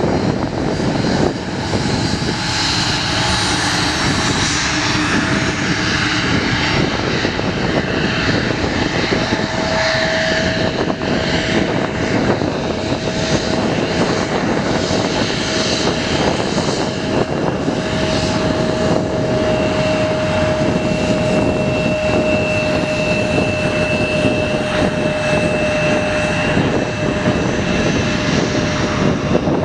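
Regional jets' rear-mounted turbofan engines running at taxi power close by: a loud, steady rush of jet noise, with a thin, steady whining tone through much of it.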